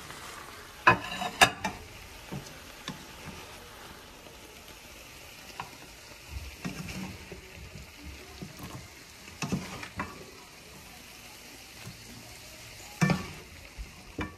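Vegetables sizzling in a hot frying pan, a steady hiss as the water they gave off cooks away, while they are lifted out. A utensil clacks sharply against the pan and dish a few times: twice about a second in, once in the middle and once near the end.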